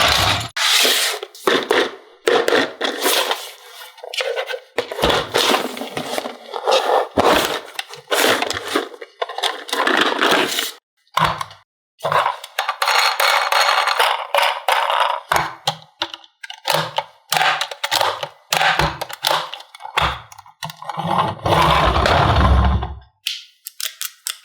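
Toys and packaging being handled: irregular scraping, rustling, clicks and knocks from plastic pieces and toy cars, with a heavier handling noise near the end.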